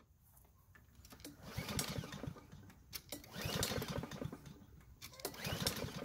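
BlackMax walk-behind mower engine being pull-started, three pulls of the recoil starter rope, each a second or so of fast chuffing as the engine turns over. The engine does not catch.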